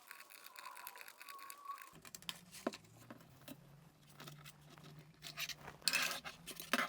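Faint clicking and scratching of a screwdriver backing out the many small screws on the back of a computer keyboard, with a cluster of louder clicks near the end.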